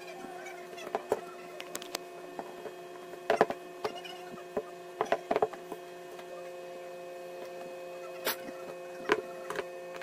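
Sharp clicks and taps of an opened smartphone's plastic housing being handled and set down on a hard table, over a steady electrical hum; a second, higher hum tone joins about two-thirds of the way in.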